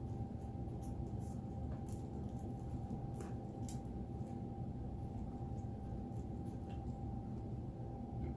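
Steady low hum of background noise with a faint steady tone in it, and a few faint, soft clicks scattered through the first few seconds.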